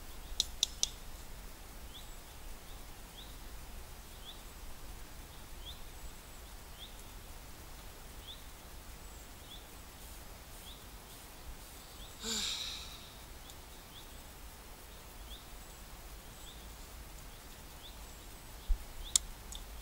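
Metal spoon clinking three times against the steel pot, then quiet woodland background with a faint high chirp repeating about once a second. About halfway there is a short breathy puff, like blowing on hot soup, and two more sharp clinks near the end.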